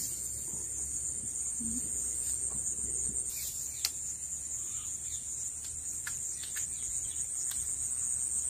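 Insects trilling steadily at a high pitch, with a few sharp ticks, the loudest nearly four seconds in.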